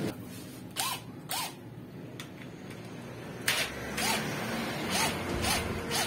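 Cordless impact drill worked in short trigger blips, about seven brief whirring bursts that rise and fall in pitch, on the nut at the end of a vacuum cleaner motor's armature shaft to loosen it.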